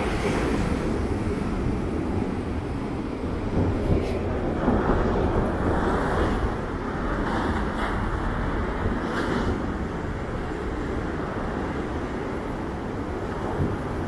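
Heavy surf of big storm-swell waves, a continuous roar with a few louder surges of breaking water, and wind rumbling on the microphone.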